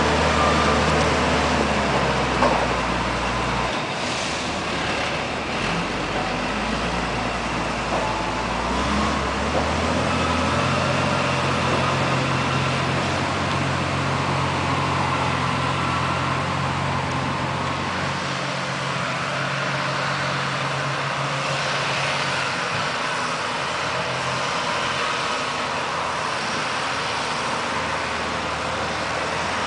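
Timberjack forestry skidder's diesel engine running as the machine drives over a rough forest track. Its note shifts a few times, rising about ten seconds in, and grows fainter in the second half as the machine pulls away.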